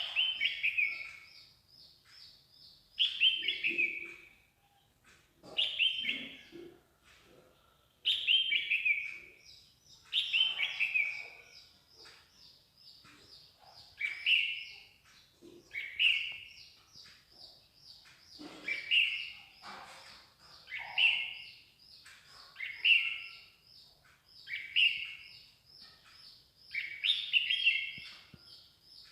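Songbird singing a short falling phrase over and over, about one every two seconds, with a higher, fast run of repeated notes between the phrases.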